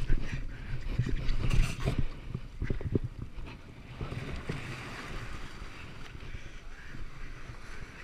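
Wind buffeting the microphone over the steady wash of surf, with several low thumps in the first three seconds.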